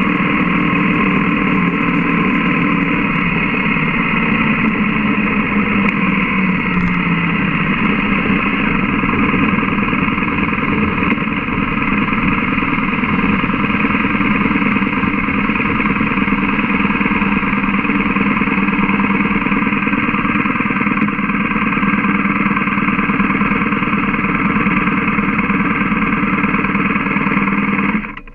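BMW GS boxer-twin motorcycle engine running at a steady pace, mixed with wind rush on the camera microphone; the sound drops off abruptly near the end.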